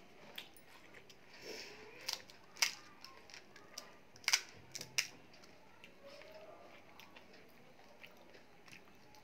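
Crisp, hollow pani puri (golgappa) shells cracking and crunching: a few sharp crunches in the first five seconds, then only faint handling.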